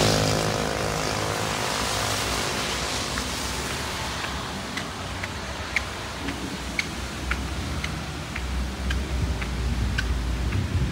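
A motorcycle passes close by, its engine falling in pitch as it fades away over the first couple of seconds. Then light rain hisses steadily, with scattered small ticks and a low rumble building near the end.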